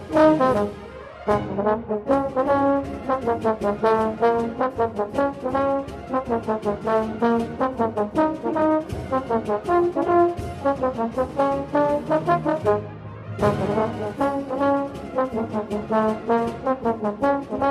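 Bass trombone played right at the microphone, inside a band performing a fast march: a steady run of quick, rhythmic brass notes. About thirteen seconds in the music drops back briefly, then the full band comes in loudly again.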